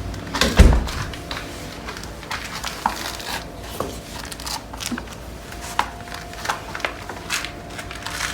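A heavy thump about half a second in, then scattered light knocks and clicks over a faint steady hum.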